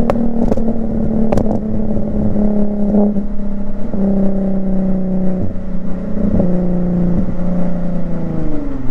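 Infiniti Q50's V6 exhaust on the move, its note holding under load and then dropping in pitch several times as the gears change. Near the end the revs fall away steadily as the car comes off the throttle.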